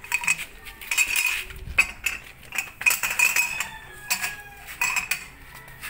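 Steel lug wrench and socket clinking against the lug nuts of a Toyota Avanza's alloy wheel as the wrench is fitted: a series of sharp, ringing metallic clinks in several clusters.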